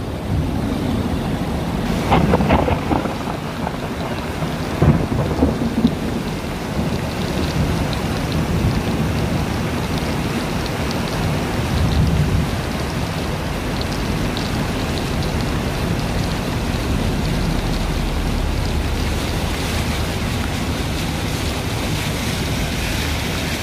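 Muddy flash-flood water rushing past in a torrent, with heavy rain falling: a loud, continuous rushing noise with a few louder surges in the first six seconds, then steady.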